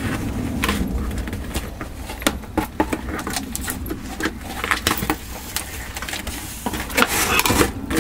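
Hands working at a box to get it open: irregular clicks, scrapes and rustling of the packaging, over a steady low hum.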